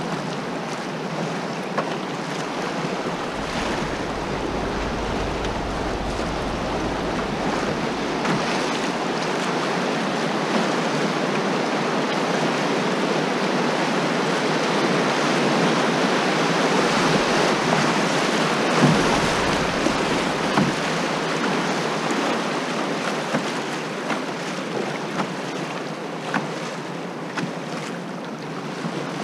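Fast river water rushing and splashing around a canoe running through riffles and small rapids; the rush swells to its loudest around the middle. Wind buffets the microphone twice, and there are a few light knocks near the end.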